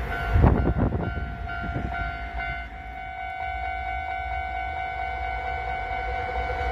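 Japanese level-crossing alarm ringing steadily with a tone pattern that pulses at first, over the low rumble of passing trains. The wheel clatter of a departing Keisei electric commuter train fades about a second in, and the rumble of the next train begins to build near the end.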